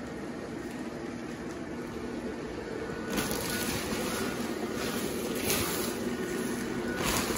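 Blower fan of a Gemmy inflatable running with a steady hum, filling the nylon pirate ship with air. From about three seconds in, the nylon fabric rustles and flaps in several swells.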